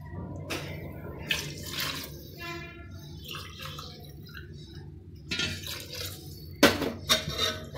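Broth poured from a steel tumbler into a pressure cooker, splashing into the curry, with several sharp metal clinks of the tumbler on the pot; the loudest two come near the end.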